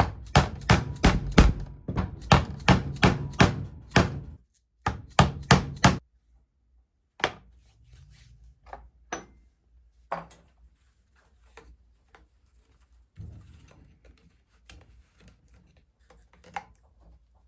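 Mallet striking a pricking iron through leather, punching the stitching holes: a fast run of sharp knocks, about three a second, for some four seconds, then a short second run. After that come scattered quieter taps and handling noise.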